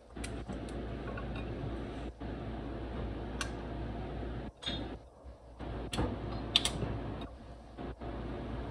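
Kitchen knife cutting raw calabaza (West Indian pumpkin) into chunks held in the hand, with a few sharp clicks and taps of the blade and pieces against the plate, the loudest about six and a half seconds in, over a steady background noise.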